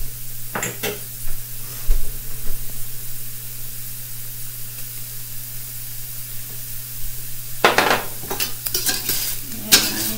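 Shrimp sizzling in a stainless steel skillet with a steady hiss. From about eight seconds in, a utensil stirs and scrapes through the pan in quick clattering strokes.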